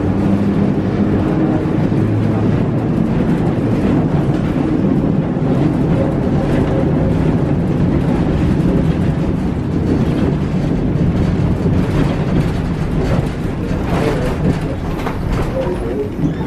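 Vintage streetcar running along the track, heard from inside the car: a steady rumble of wheels on rail and rattling body, with a low hum that fades in the first second or two and a few sharp clicks near the end.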